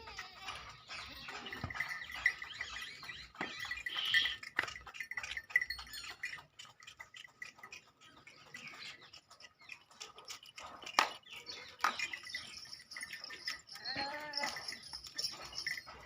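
A goat bleats once, a wavering call near the end, among scattered knocks and clicks.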